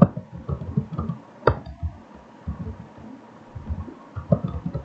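Computer keyboard typing: irregular soft key taps, with one sharper click about a second and a half in.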